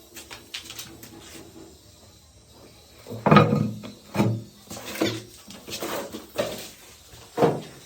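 A handful of separate knocks and clatters, about five, from a basin waste coupling being handled and fitted. They begin about three seconds in, after a quieter stretch, and the loudest comes first.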